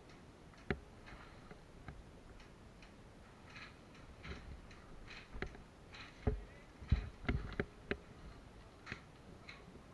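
Scattered, irregular sharp clicks and knocks, most of them in the second half, over a faint background.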